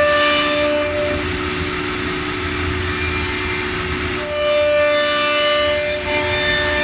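Woodworking CNC machine running with a steady multi-tone whine. It grows louder and higher for a couple of seconds about four seconds in, and again just before the end.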